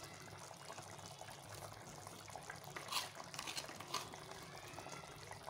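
Faint, steady simmering from a pot of meat gravy on a gas burner, over a low hum. A few light clicks come about three and four seconds in as a spice container is handled.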